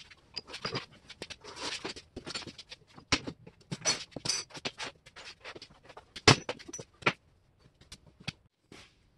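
Irregular clinks, knocks and scrapes of metal hand tools and parts being handled on a steel workbench, with a few louder clanks, the loudest about six seconds in.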